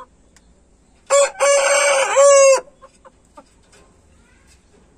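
Aseel rooster crowing once, loudly, starting about a second in: a crow of about a second and a half, broken into a few short notes and ending on a held note.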